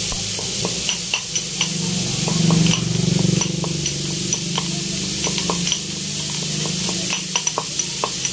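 Diced pork belly sizzling in oil in a wok, with scattered sharp clicks and pops coming in irregular clusters.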